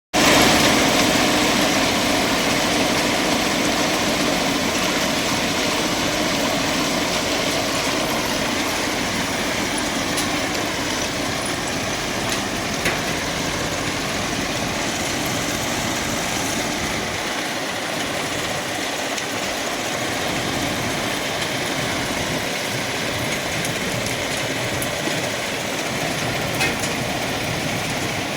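Indian Railways FRM track machine working: its engine and machinery make a steady, loud mechanical din, with a couple of brief sharp knocks.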